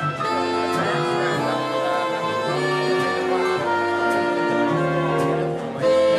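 Dance band playing a ballroom tune, with horns carrying the melody over a stepping bass line and light percussion taps.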